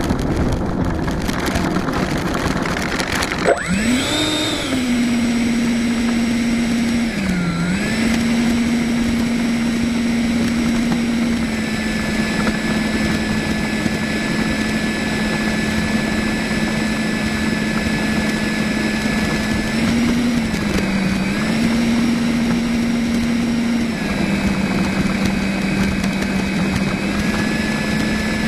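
Freewing Yak's 70mm electric ducted fan spooling up a few seconds in, then holding a steady whine with a few brief throttle dips as the jet taxis on the runway. Before it spools up there is a rattly, windy noise.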